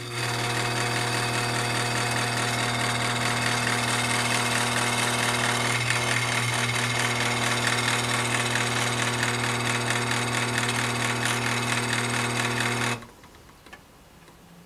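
Worn attic exhaust fan electric motor running on the bench with no fan blade fitted. It makes a strong steady hum with a harsh noise over it that doesn't sound very good, then cuts off suddenly near the end. The rough running is the sign of worn-out bearings or bushings, with play in the shaft.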